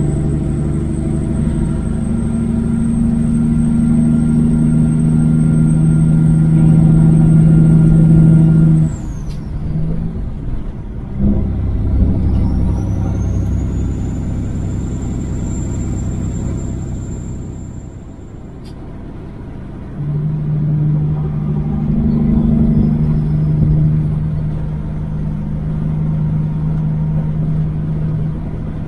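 Kenworth W900 semi truck's diesel engine running steadily at highway speed. About nine seconds in the engine note drops away, with a sharp click about two seconds later, leaving a lower rumble; about twenty seconds in the engine note comes back strongly and holds.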